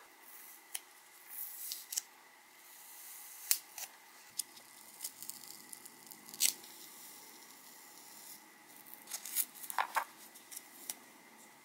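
Adhesive tape being peeled off the cells of a small lipo battery pack: faint, intermittent crackling and tearing with scattered sharp ticks, the strongest about three and a half and six and a half seconds in.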